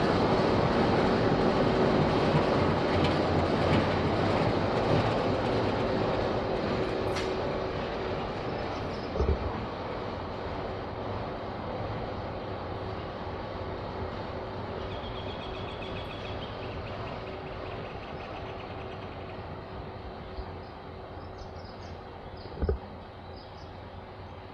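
Train running on the rails and moving away, its rumble and wheel clatter fading steadily. A faint steady tone runs under it, and two dull thuds come about nine seconds in and near the end.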